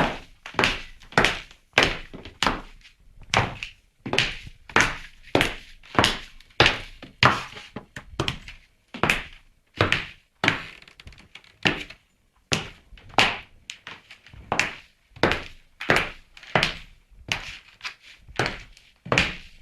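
High-heeled shoes walking, each step a sharp click-knock, about one and a half steps a second, with a brief pause a little past halfway.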